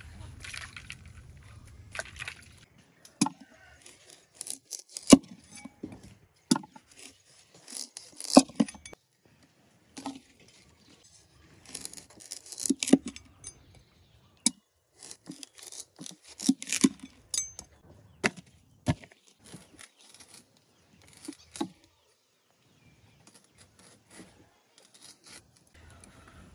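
Large kitchen knife slicing a winter melon into thick rounds on a wooden chopping board: irregular sharp knocks of the blade striking the board, some coming in quick clusters. The knocks stop near the end.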